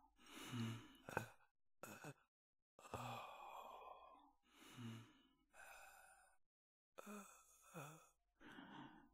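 A run of quiet sighs and shaky breaths from a person in distress, about seven of them with short silent gaps between.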